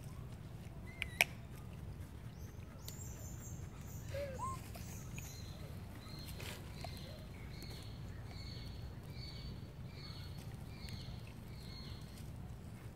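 A series of about a dozen short, high chirping calls, roughly two a second, from about five seconds in until near the end, over a low steady rumble. A sharp click about a second in is the loudest sound, and a few brief lower squeaks come just before the chirping begins.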